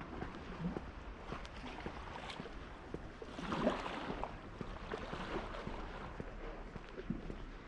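High-tide seawater sloshing and lapping, with scattered light knocks and a louder surge of water about three and a half seconds in.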